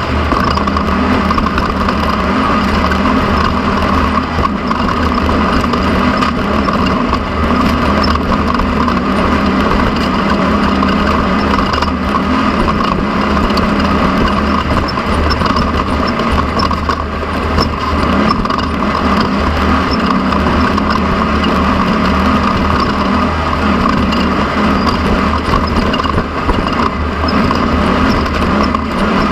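Off-road desert race car running at speed, heard from on board: a loud, steady engine drone mixed with road and wind noise.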